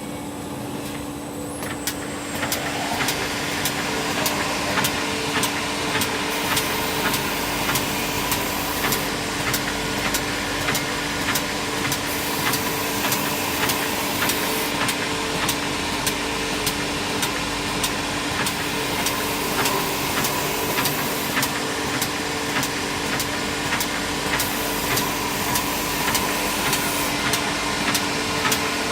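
CNC machining center for wooden furniture legs running with a steady hum; about two seconds in its spindle winds up and the machine starts cutting, a continuous noise with regular clicks about two a second.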